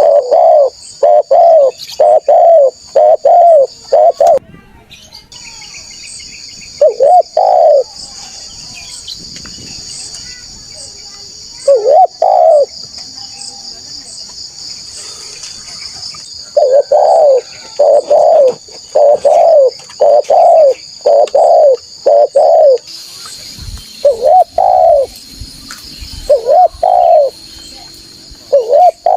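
Spotted dove cooing: loud runs of short, mellow coo notes, about five in a row at first, single notes after pauses, then a longer run of about eight. A steady high insect buzz runs underneath.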